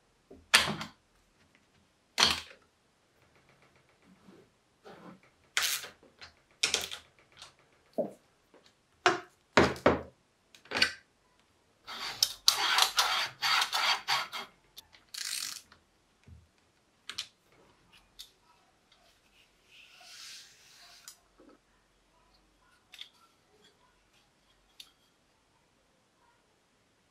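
Scattered sharp clicks and knocks of metal on wood as steel ball-bearing drawer slides are handled and fitted onto a plywood board with pliers. About twelve seconds in comes a denser run of rattling clicks, and around twenty seconds a short hiss.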